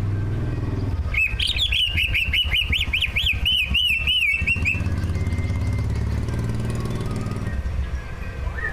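Cucak ijo (leafbird) singing a rapid, chattering burst of quickly rising and falling whistled notes for about four seconds, starting about a second in, with softer calls near the end. A low steady hum runs underneath throughout.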